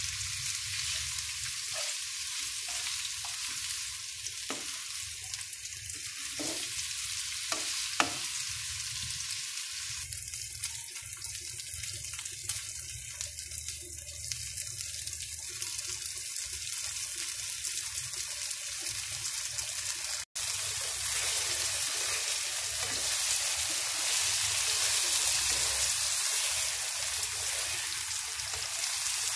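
Tofu cubes sizzling as they are stir-fried in a non-stick wok, with a spatula knocking against the pan a few times in the first eight seconds. The sizzle breaks off for an instant about twenty seconds in, then carries on a little louder.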